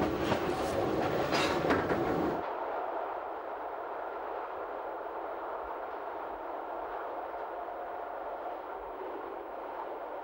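Metre-gauge electric train running on its rails, heard from on board, with the wheels clicking over rail joints. About two seconds in the sound cuts off abruptly to a much quieter steady rumble.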